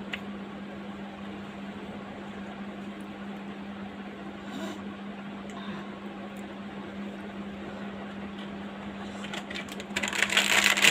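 Steady low mechanical hum of a running room appliance, with a brief burst of rustling near the end.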